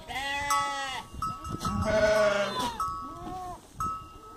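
Goats in a pen bleating: several calls one after another, the loudest about two seconds in and a shorter one a little after three seconds.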